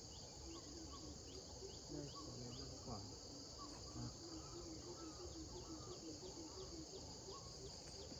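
Steady high-pitched chorus of insects, with faint short chirps repeating over it and a run of lower pulsing notes in the first two-thirds. A few soft knocks come around the middle.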